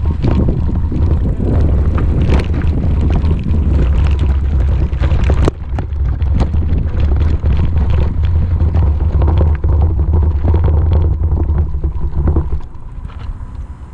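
Heavy wind rumble on an action camera's microphone while riding a bicycle over a rough dirt track, with frequent knocks and rattles from the bumps. It drops away near the end.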